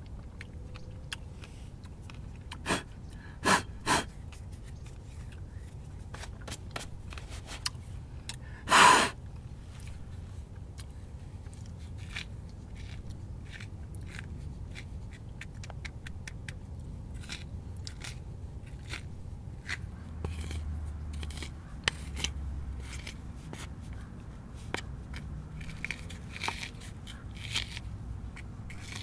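Pomegranate seeds being pried from the rind by hand and falling into a bowl: scattered small crackles and clicks, a few louder snaps around three to four seconds in, and one louder rasp about nine seconds in.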